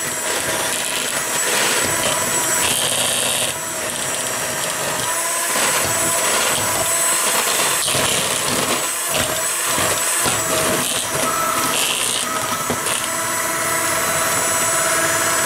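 Electric hand mixer running steadily, its twin beaters beating butter, brown sugar and eggs into cake batter in a bowl.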